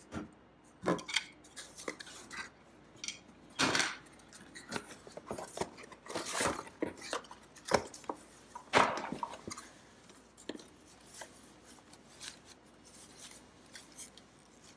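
Handling of an unboxing: grey plastic mounting-spike pieces clacking together and against the cardboard box, then the foam-wrapped weather station unit rustling as it is lifted out. Irregular clicks, knocks and rustles, with a few louder knocks spread through.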